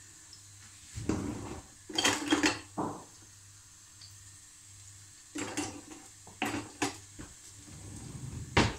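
A frying pan and kitchen utensils clattering: several short bursts of clinks and knocks, the loudest near the end, over a faint low steady hum.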